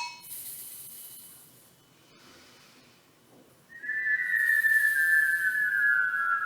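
A high hiss fading out over the first second or two. Then, from a little past halfway, a long whistled note starts suddenly and is held, gliding slowly and steadily down in pitch, with two close tones sounding together.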